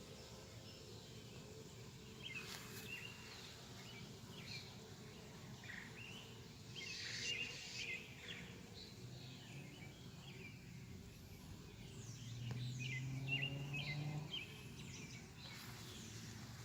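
Quiet outdoor ambience with birds chirping now and then, and a honey bee buzzing close to the microphone for about two seconds near the end, a steady low hum at the hive entrance.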